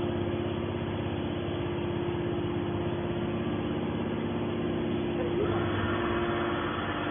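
Hydraulic scrap metal baler running: a steady motor-and-pump hum with a fast even pulse, growing a little louder and brighter about five and a half seconds in.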